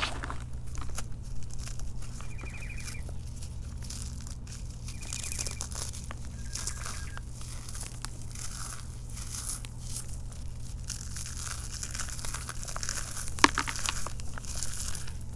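Hands crumbling and crushing chunks of powdery reformed chalk, a dry gritty crackle of breaking lumps and falling crumbs, with one sharper snap near the end.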